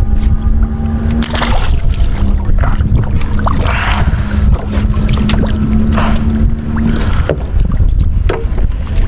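A bamboo-handled fishing trident plunging and stirring in sea water, with several short splashes, over a constant low rumble of wind on the microphone. A steady hum runs underneath and stops about seven seconds in.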